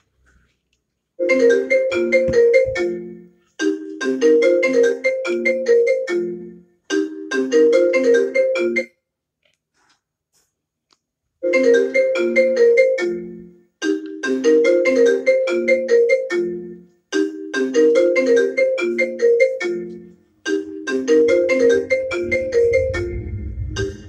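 iPhone ringtone playing from the phone's speaker: a short marimba melody repeated phrase after phrase, each about two seconds long, with a pause of about two seconds near the middle.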